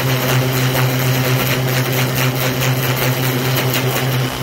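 Greenworks 2300 psi electric pressure washer running under load: a steady motor-and-pump hum with the hiss of the turbo-nozzle jet spraying onto umbrella fabric.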